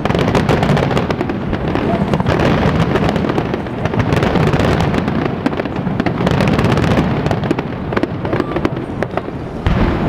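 Aerial fireworks display going off: a dense string of quick bangs and crackles from bursting shells.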